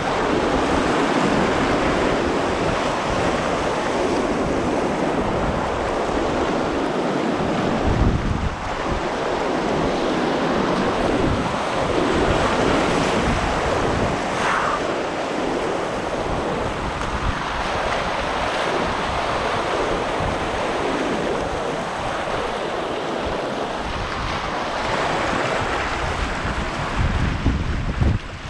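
River whitewater rushing steadily and loudly, with wind buffeting the microphone.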